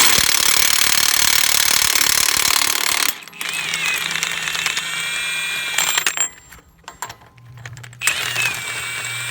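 Impact wrench hammering hard for about three seconds, then spinning freely with a steady whine in two shorter runs: the nut used to draw a new wheel stud into the hub is being run back off.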